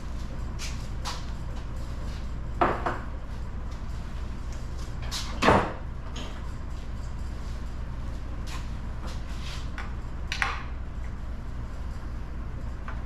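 Metal engine parts and hand tools being handled during an engine teardown: three separate clinks and knocks about three seconds apart, the middle one loudest, with a few faint ticks between them over a steady low shop hum.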